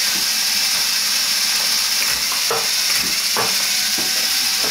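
Two Lego Technic buggy motors spinning the ball-launch wheels of a table tennis robot at speed, a steady high-pitched whir. A few short clacks come in the second half as the crank-driven feeder pushes balls up the tube into the wheels and they are fired.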